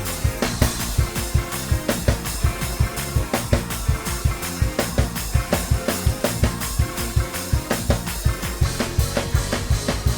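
Gospel praise break: fast, driving drum kit groove with kick, snare and cymbals under keyboard chords and bass.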